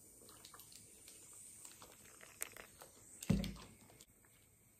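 Mostly quiet, with faint small clicks and rustles of a paper candy wrapper being handled. A plastic candy bottle is set down on a wooden table with a short dull thump about three seconds in.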